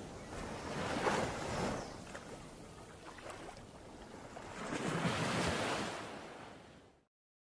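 Small sea waves washing onto a sandy shore, swelling twice, about a second in and again about five seconds in, with wind on the microphone. The sound cuts off suddenly near the end.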